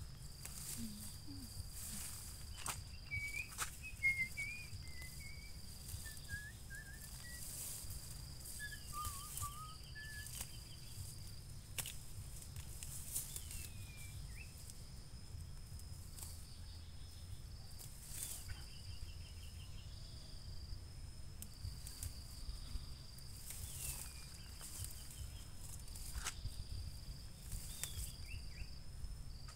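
Outdoor garden ambience: a steady high-pitched insect drone, with birds chirping and trilling now and then, most often in the first third. Short clicks and rustles come every few seconds as weeds are pulled by hand.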